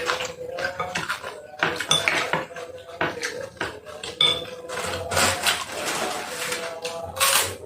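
A spoon and cutlery clinking against a bowl during a meal of meatball soup: many quick clinks and clicks, with two longer, noisier sounds around five seconds in and near the end.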